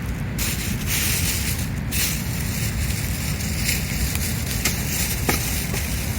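Wood fire crackling in a fire pit as a batch of thin wooden disposable chopsticks catches, with scattered sharp pops over a steady low rumble.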